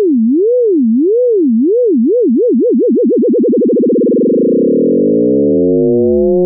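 Computer-generated sine tone with frequency modulation that keeps speeding up. The pitch swings up and down, slowly at first and then faster and faster, until past the middle the swings blur into a steady, buzzy chord of several tones, the sidebands of the fast modulation.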